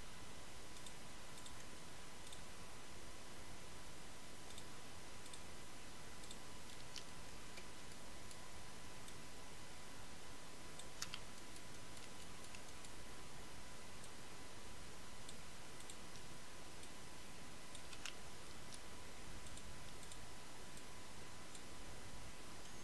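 A few faint, isolated computer mouse clicks over a steady low hiss with a faint, steady high tone.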